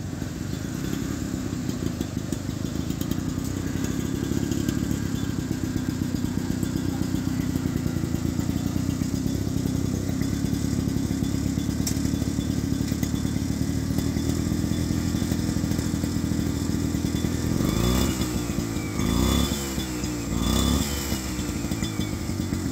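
Agria 4000S motor hoe's engine running steadily with a fast, even beat as the tiller is worked. Near the end the engine speeds up and drops back three times in quick succession.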